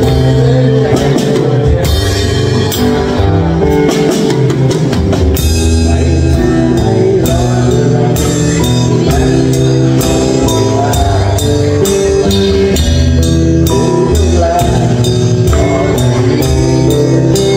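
Live band music: a drum kit played with sticks, snare and cymbal hits keeping a beat over sustained bass and chord notes. The drumming turns into a steady, busier beat about five seconds in.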